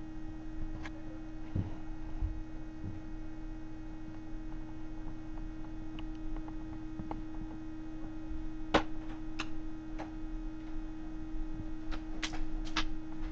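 Steady electrical hum with a few scattered short clicks and taps, a pair of them about nine seconds in and a few more near the end.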